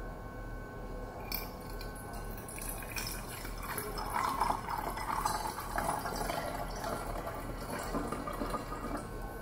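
Cold water poured from a plastic bottle into the narrow mouth of a metal drinking bottle. The filling sound starts about a second in and gets louder from about four seconds.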